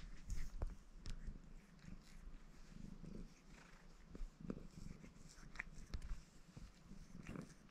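Maine Coon cat purring while grooming itself, with soft clicks of its tongue licking its paw and fur.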